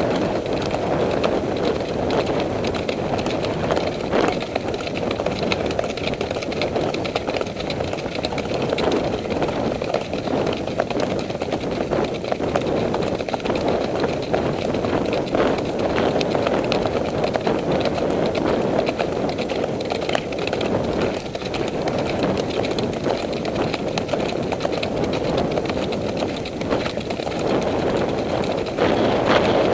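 Hoofbeats of several horses moving along a dirt trail, heard from the saddle, under a steady rush of wind on the microphone.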